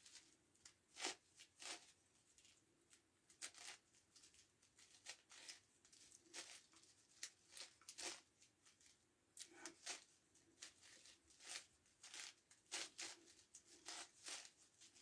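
Faint plastic clicks and scrapes from the layers of a 9x9x9 Rubik's Cube being turned by hand, coming in short irregular bursts, about one or two a second.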